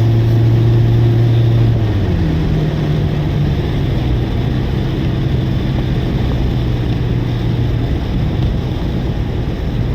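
Car engine and road noise heard from inside the moving car: a steady low engine drone that rises a step in pitch about two seconds in, over a constant hiss of tyre and wind noise.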